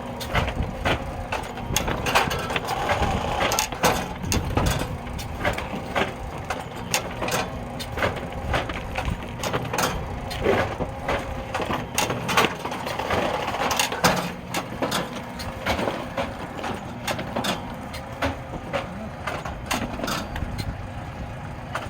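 Automatic seedling-tray feeder running: a steady machine hum under frequent irregular clacks and knocks as plastic nursery trays are fed and dropped.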